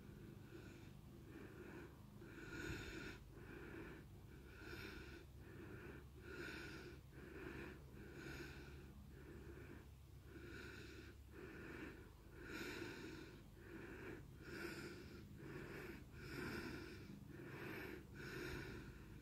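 Heavy breathing of a person close to the microphone, a soft wheezy breath about once a second, alternating stronger and weaker.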